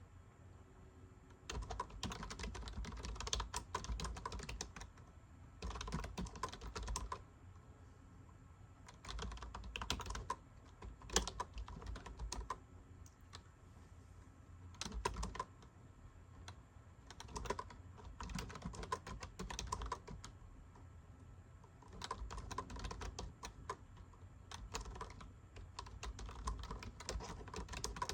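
Typing on a keyboard: runs of rapid keystrokes lasting a few seconds each, broken by short pauses, with a longer unbroken run near the end.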